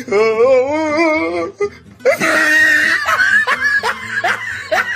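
Laughter over background music: a long wavering laugh, a short burst of hiss, then a run of short rising laughs.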